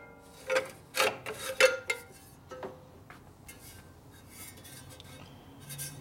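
Steel motorcycle exhaust pipe being worked loose and pulled off by hand. About five ringing metallic clanks come in the first two seconds, then fainter scraping and rubbing of metal on metal.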